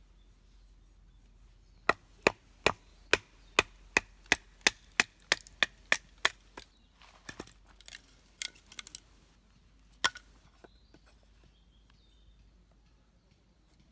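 Batoning firewood: a wooden baton strikes the spine of a Mora knife driven into a log, about thirteen sharp knocks in quick succession that speed up slightly. A few softer scattered cracks and splintering sounds follow as the wood splits.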